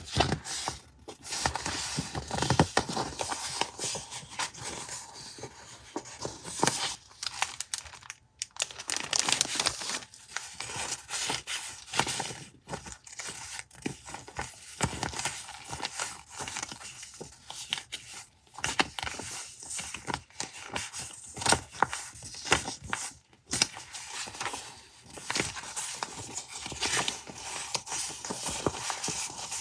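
Paper and stationery being handled up close: irregular rustling, crinkling and tearing of paper, with small taps and clicks.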